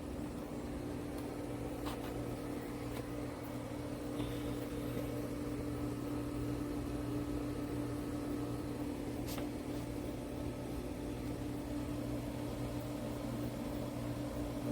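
A steady low mechanical hum with a constant pitch, and a faint click or two.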